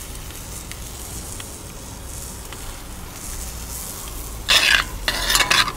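Chanterelle cream sauce simmering in a cast-iron pot on a grill side burner, a faint steady hiss. About four and a half seconds in, loud scraping strokes begin as a spoon stirs the pot.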